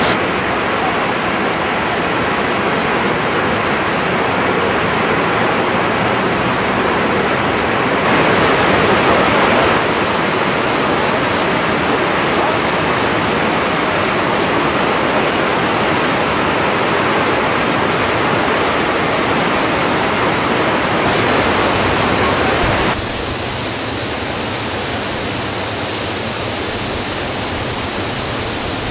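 Waterfall running high after heavy rains, its falling water making a loud, steady rush. The rush drops a little in level about three-quarters of the way through.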